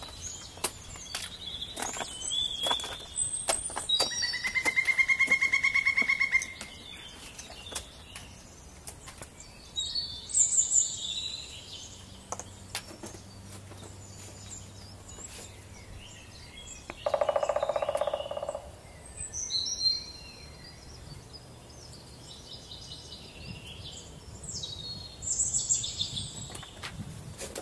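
Woodland songbirds singing: a loud, fast trill about four seconds in, several shorter high song phrases, and a lower call about halfway through. Sharp taps of footsteps and trekking poles on rock come in the first few seconds and again near the end.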